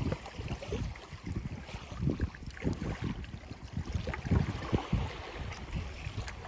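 Wind buffeting the microphone in uneven gusts, with choppy bay water lapping and splashing against a kayak hull as it moves through rough water.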